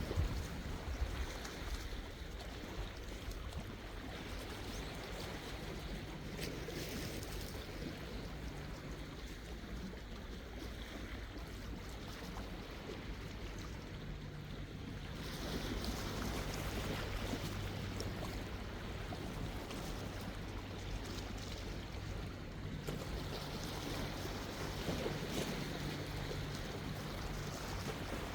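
Sea waves washing in continuously, swelling louder about halfway through, with a faint low steady hum underneath at times.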